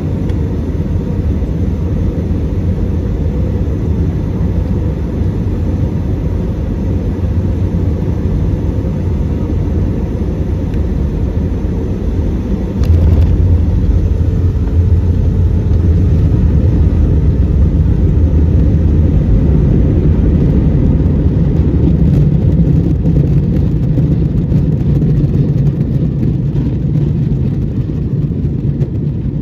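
Jet airliner landing, heard inside the cabin: a steady rumble of engines and airflow, then a sharp thud about halfway through as the wheels touch down, followed by a louder roar and rumble of the rollout with some rattling, easing near the end.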